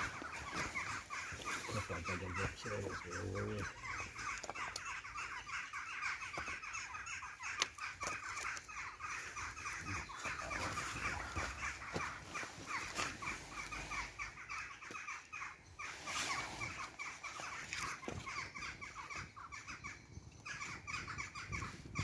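Newly lit campfire of split kindling over a fire lighter, burning with a steady dense crackle and a few sharper pops.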